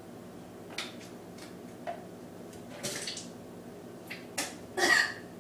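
A few short coughs and splutters from a person whose throat is irritated by cinnamon powder, mixed with sharp clicks. The loudest cough comes about five seconds in.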